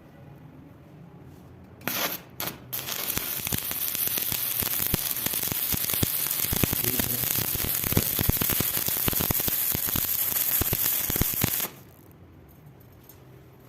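Electric arc welding: the electrode is struck a few times in quick succession about two seconds in, then the arc burns with a steady crackle and sizzle for about nine seconds before it is broken off suddenly.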